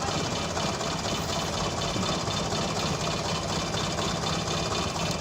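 Truck engine running steadily with a low, even drone.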